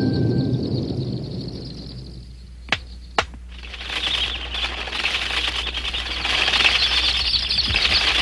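An organ chord dies away, then two sharp clicks about half a second apart. After that comes a dense fluttering rustle, like flapping wings, that grows louder and keeps on.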